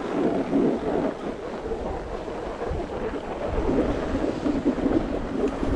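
Wind buffeting the microphone of a camera carried by a moving skier, mixed with the rushing scrape of skis sliding over packed snow, swelling and easing unevenly.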